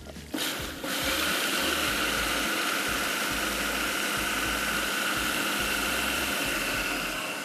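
Electric grinder running, grinding dal into a paste: a short pulse, then steady running from about a second in, easing slightly near the end.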